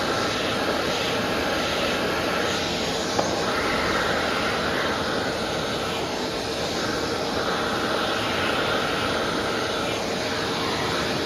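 Vacuum cleaner running steadily, a loud rushing hum with a higher whistle that shifts up and down in pitch.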